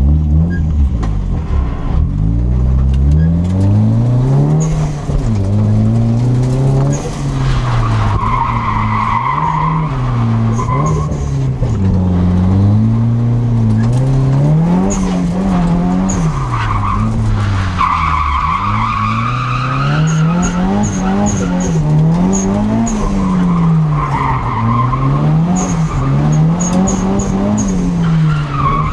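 Nissan S13's turbocharged CA18DET four-cylinder engine revving up and down over and over under throttle, heard from inside the cabin, with the tyres squealing several times as the car drifts.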